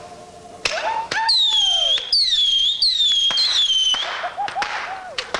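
Whistling fireworks going off one after another from about half a second in. Several shrill whistles overlap, each falling slightly in pitch, with some lower whistles among them and sharp pops and cracks.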